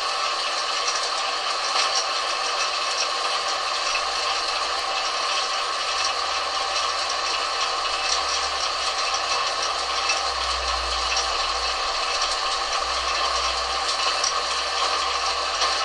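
Harrison metal lathe running with the work turning, a steady mechanical rattle with a constant whine. A low rumble grows stronger about ten seconds in and eases off near the end.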